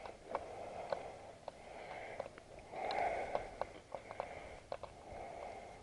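Faint breathing in and out, several slow breaths, with scattered small clicks and rustles of handling.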